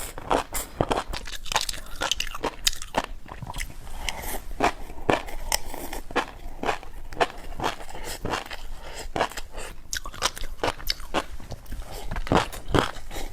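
Close-miked chewing of a crunchy snack: a rapid, irregular run of crisp crunches and bites.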